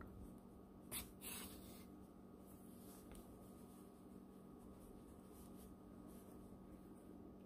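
Yarn drawn through crocheted fabric with a yarn needle: two brief soft swishes about a second in, then near silence with a faint steady hum.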